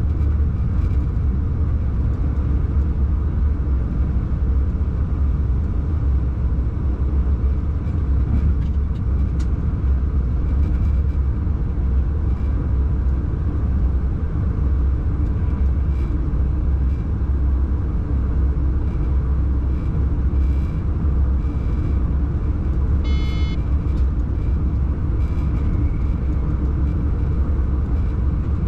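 Steady low rumble inside a locomotive cab as a train runs along the line. Near the end there is a brief high beep.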